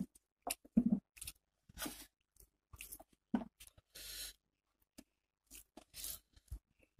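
Eating by hand: fingers mixing rice and curry on a steel plate, with chewing, heard as a run of short irregular smacks and clicks. A slightly longer squelchy stretch comes about four seconds in.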